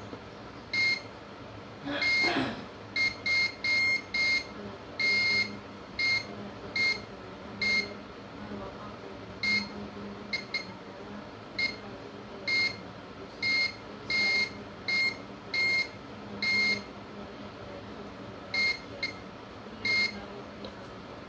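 Digital multimeter continuity buzzer giving some two dozen short beeps at irregular intervals as the test probe is touched to points on a phone logic board. Each beep signals a low-resistance path to ground, here on supply lines (VREG L15A and VREG BOB) that are shorted.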